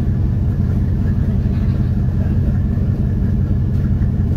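Steady low rumble of a high-speed passenger ferry's engines running as the ferry gets under way.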